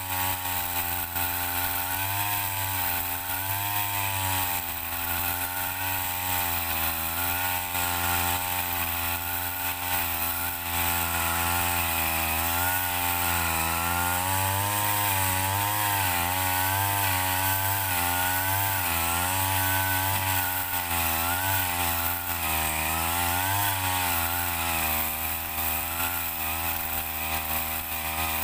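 Backpack brush cutter engine driving a chainsaw attachment on its long shaft, running hard as the chain cuts into a coconut palm trunk, its pitch wavering up and down.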